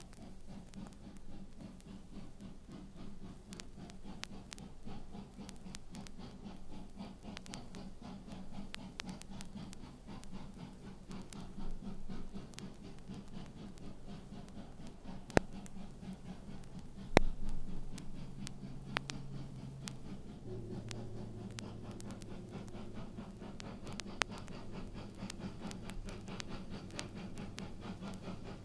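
Vinyl LP surface noise: steady crackle with scattered sharp pops, the loudest a little past halfway, over a faint low hum that drops slightly in pitch about two-thirds of the way in.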